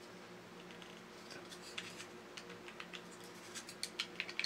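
Light clicks, taps and scrapes of hard 3D-printed plastic parts and a small metal tool as a cam linkage and gear motor are pressed and pried into a plastic housing, more of them near the end. A faint steady hum runs underneath.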